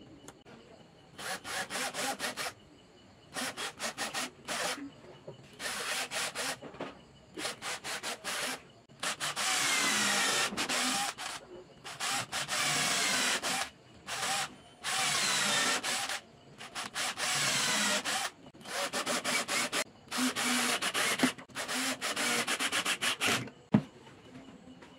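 Cordless drill boring into a hardwood block in about a dozen runs of one to two seconds each, stopping and starting, the motor's pitch sliding as the bit bites and speeds up. A single sharp knock comes near the end.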